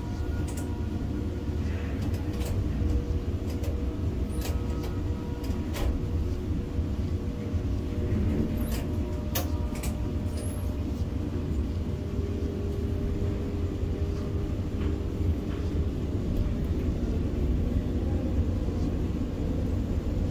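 Steady low rumble of a ship-to-shore container crane's machinery, heard from the operator's cab as the spreader lifts a 40 ft container off a truck chassis. A few short clicks come between about four and ten seconds in.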